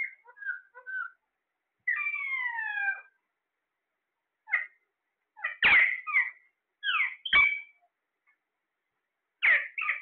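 Caged green ring-necked parakeets calling: a run of short, harsh squawks and chirps, with one longer falling call about two seconds in and a cluster of loud squawks in the second half.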